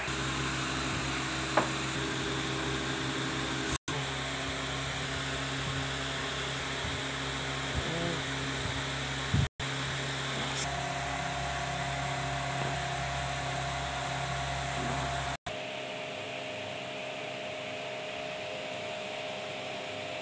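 Steady machine hum with hiss, a running motor in the room. It cuts out briefly three times, and there is a single click about a second and a half in.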